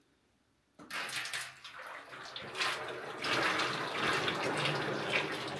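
Sugar syrup poured in a thick stream from a metal pot into a large metal cauldron, splashing against the cauldron's wall. The pour starts suddenly about a second in and keeps going.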